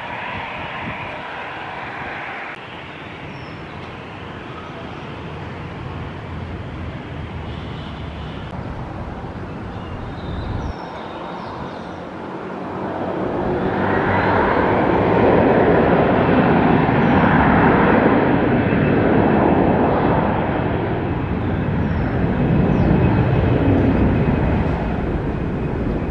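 An Airbus A321-211's CFM56 turbofan engines run at low thrust with a steady rush, then rise about halfway through to a much louder, sustained rush as takeoff power is applied.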